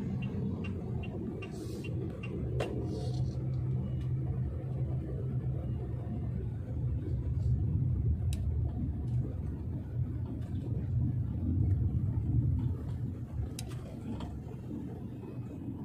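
Wuling Almaz turbo SUV driving along, a steady low engine and road rumble heard from inside the car.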